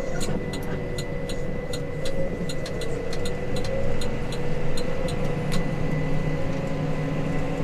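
Case Maxxum 150 tractor's six-cylinder diesel running steadily under load while towing a loaded grain trailer. Light, irregular rattling ticks sound throughout.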